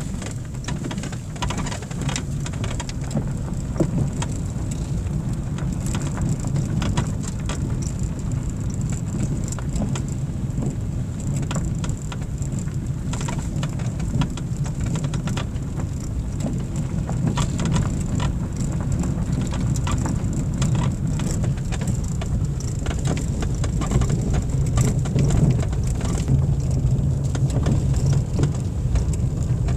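Inside a car driving on an unpaved gravel and volcanic-cinder road: a steady low rumble of engine and tyres, with frequent sharp ticks of loose stones against the tyres and underbody.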